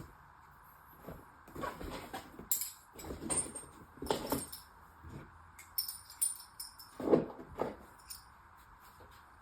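Small metal tools and bits clinking and knocking as they are handled and sorted, in scattered short sounds with the loudest knocks about 2, 4 and 7 seconds in.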